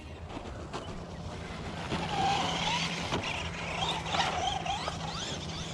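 Remote-control rally car driving over grass with a steady motor hum. Twice its motor whine rises and falls in pitch as it speeds up and slows.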